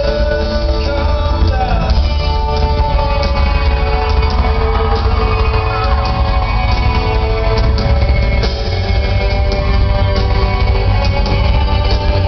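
Live rock band performance: a male singer holding sung lines over electric guitar, drums and a heavy bass, heard from the audience in a large hall, with shouts from the crowd.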